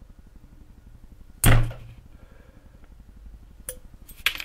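Pliers tearing a spot-welded 0.15 mm nickel-plated steel strip off a cylindrical lithium cell: one loud, sharp snap about a second and a half in, then two lighter clicks near the end.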